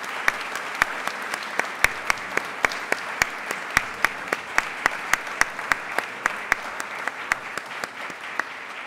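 An audience applauding steadily, with one nearby pair of hands clapping sharply and evenly about three to four times a second above the general clapping.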